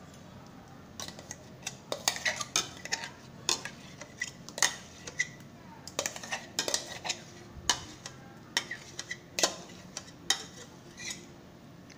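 Spoon knocking and scraping against a bowl and metal tin in a run of irregular sharp clinks, starting about a second in, as the last of the ice cream mixture is scraped out.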